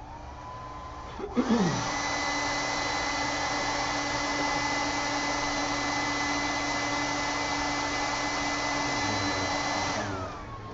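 Hair dryer blowing. It spins up on a low setting, is switched to a louder, higher-pitched setting about a second in, runs steadily, and winds down with a falling whine near the end as it is switched off.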